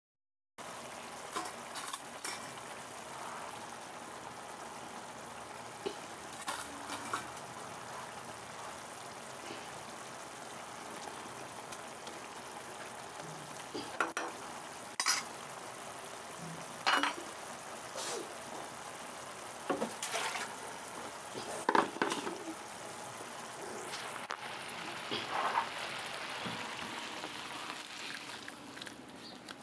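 Fish curry sizzling in a non-stick frying pan, a steady hiss, with several clinks and scrapes of a utensil against the pan, most of them in the second half.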